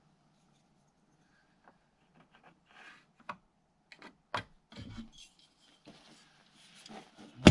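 Countertop being handled and fitted into place: wood rubbing and scraping, with scattered clicks and knocks and a sharper knock about halfway through.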